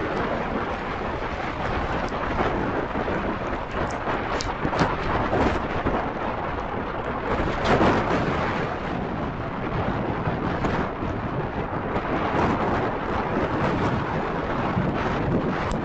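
Typhoon wind and heavy rain, a dense steady rush that swells and eases in gusts, with the strongest gust about eight seconds in.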